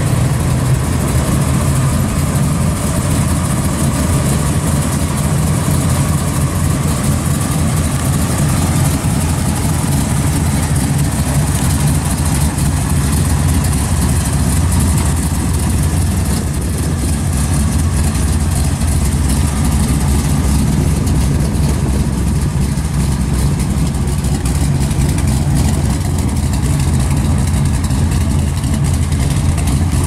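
Pontiac Ventura II's engine idling with a steady low exhaust note as the car rolls slowly along.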